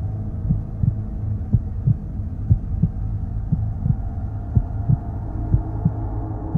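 Background music: a low steady drone with a heartbeat-like double thump about once a second.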